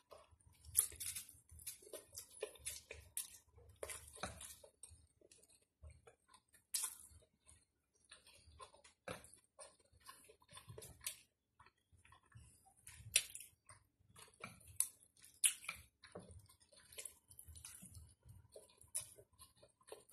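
A person chewing a mouthful of stir-fried rice noodles close to the microphone, making many short, irregular wet mouth clicks and smacks.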